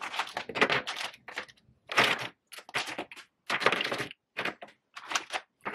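Lipstick tubes clicking and clattering against each other and the cardboard as they are set down, one after another, into a shoebox divider: an irregular run of short knocks and rattles.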